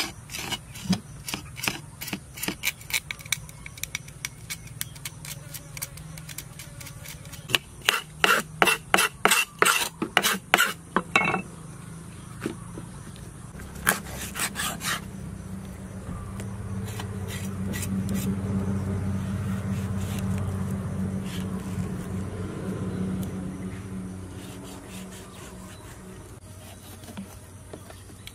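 Kitchen knife scraping the scales off a Boeseman croaker on a wooden chopping board, in quick repeated rasping strokes, with a few more strokes a little later. Toward the middle a low engine hum swells and fades away.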